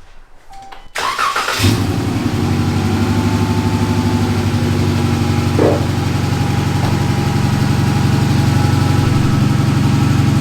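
3.6-litre V6 of a 2016 Dodge Challenger cranking and catching about a second in, then idling steadily with an even pulse. The engine has a cylinder 1 misfire that makes the car shake.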